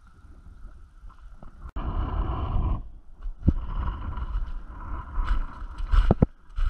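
Boots crunching through slushy snow and broken ice, with clothing and a bag rustling, and a few sharp knocks near the end.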